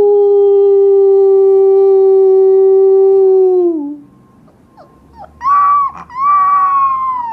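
Husky puppy howling: one long, steady howl of nearly four seconds that drops in pitch as it ends, then after a short pause two shorter, higher howls, the last one falling away.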